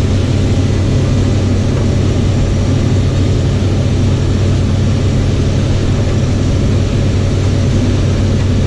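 Combine harvester shelling corn: a steady, unchanging heavy engine drone with a strong low hum and an even wash of machine noise over it.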